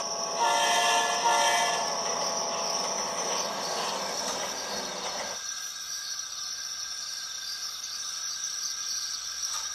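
Model train layout sounds: a horn-like chord of several steady tones sounds about half a second in and fades over the next few seconds over a hissing running noise. The hiss cuts off abruptly about five and a half seconds in, leaving a faint steady high whine.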